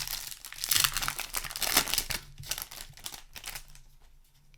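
Foil booster pack wrapper crinkling as it is handled and torn open, with the strongest crackle in the first two seconds and lighter rustling that fades out.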